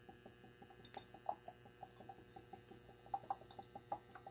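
Homemade oxyhydrogen electrolysis cell in sodium hydroxide solution giving off gas, the bubbles making faint small irregular pops several times a second over a faint steady low hum.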